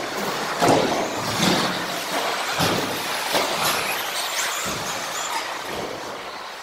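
Radio-controlled cars racing on a carpet track, their motors whining up and down in pitch as they accelerate and slow, with scattered knocks from the cars.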